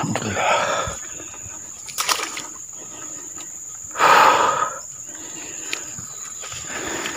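Water splashing as a mesh keep net holding a fish is dipped into the shallows of a river. There are two splashes, the louder about four seconds in.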